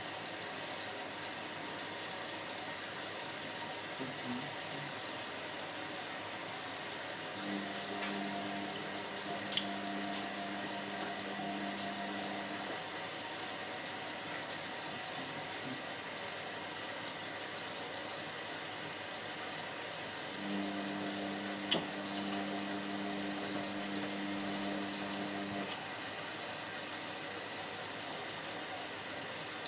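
Indesit washing machine early in its sport wash cycle: water hissing steadily into the drum, while the drum motor hums through two turns of about five seconds each, with a few sharp clicks.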